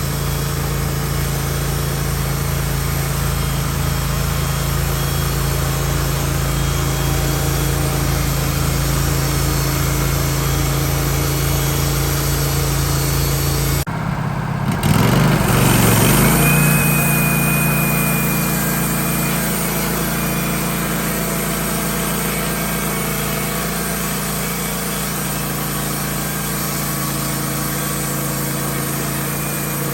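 Wood-Mizer LT15 portable bandsaw mill running steadily under load as its blade saws a log lengthwise. About halfway through the sound breaks off briefly, comes back louder for a couple of seconds, then settles to the same steady hum.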